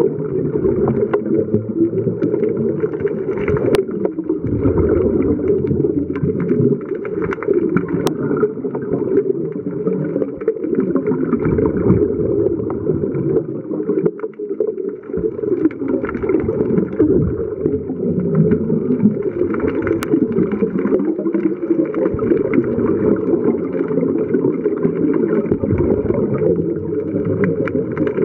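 Muffled underwater noise during a scuba dive: a continuous low rushing and gurgling of water and diver's bubbles, dull with no treble, with a few brief clicks.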